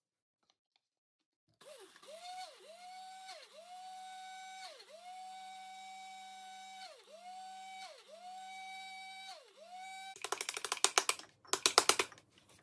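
Electric blade spice grinder running on dry seeds. It starts about a second and a half in, and its steady motor whine dips briefly and recovers several times as it is pulsed. After about ten seconds it stops, and loud rapid rattling and knocking follow as the grinder is handled.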